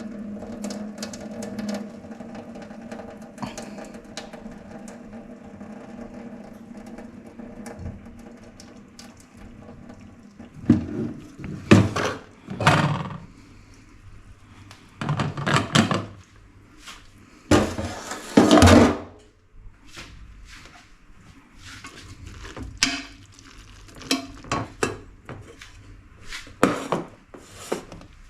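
Kitchen clatter of pots, dishes and cutlery being handled: a steady hum for the first third, then several loud scraping, knocking noises, then lighter clinks and taps.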